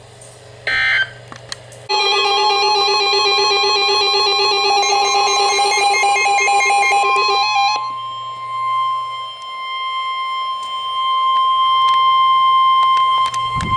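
About two seconds in, a loud run of rapidly warbling electronic tones for several seconds; as it fades, a steady single-pitch alert tone near 1 kHz holds for about six seconds and stops just before the next broadcast. The steady tone is the NOAA Weather Radio 1050 Hz warning alarm tone that precedes a tornado warning.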